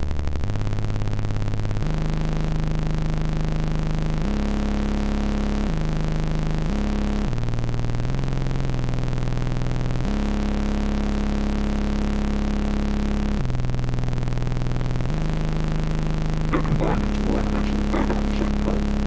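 Low synthesized humming tones, the audio signal that draws looping shapes on an oscilloscope display, stepping to a new pitch every second or two. Near the end a rougher, scratchy layer joins in as the traced shapes turn jagged.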